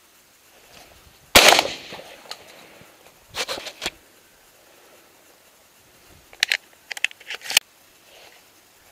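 A single shotgun shot about a second and a half in, the loudest sound, with a short tail of echo. Two later clusters of quieter, sharp metallic clicks and clacks follow, typical of a break-action shotgun being opened, reloaded and snapped shut.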